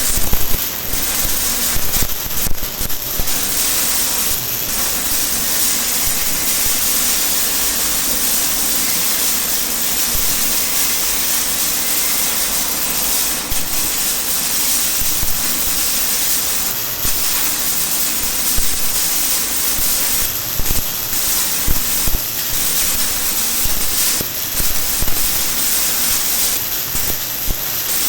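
Arc welding at a robotic welding workstation: the welding arc gives a steady, loud hiss with a few brief breaks.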